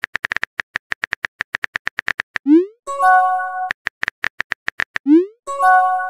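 Chat-app typing and message sound effects: a run of rapid keyboard-typing clicks, then a short rising pop and a brief synthesized chord chime as the message sends. The pattern happens twice, the second chime near the end.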